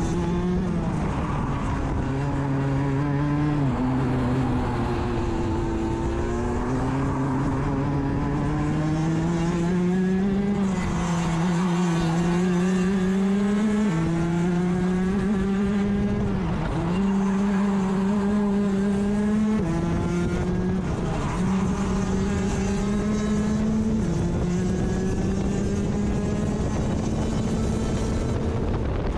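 Rotax DD2 kart's 125cc two-stroke engine at race pace, heard from on board. Its pitch climbs steadily along each straight and drops sharply when the driver lifts for a corner, several times over.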